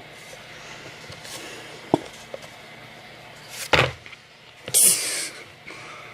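Handling noises: a light click about two seconds in, a louder knock near four seconds, then a short hissing rush about five seconds in.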